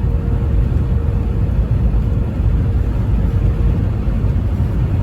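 Vehicle driving at highway speed, its engine and tyres making a steady low rumble with a faint constant hum above it; no horn sounds.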